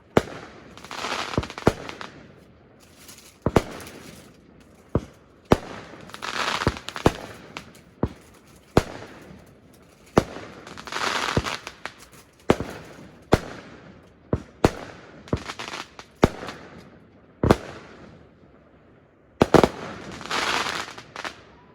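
Fireworks going off: a dozen or more sharp bangs at uneven intervals, with stretches of crackling that last a second or two, coming four times.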